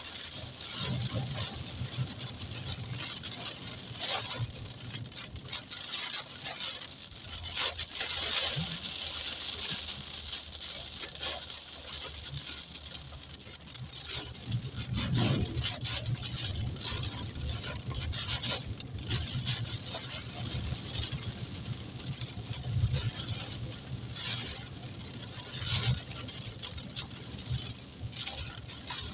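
Heavy rain pattering on a car's windshield and roof, heard from inside the moving car over steady engine and tyre noise on the wet road.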